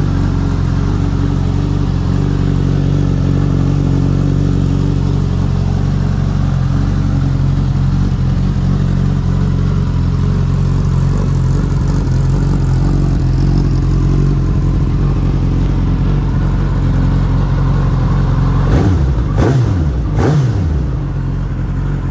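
2018 Suzuki GSX-S1000F's inline-four engine idling steadily in neutral, then blipped twice near the end, the revs rising and falling each time, about a second apart.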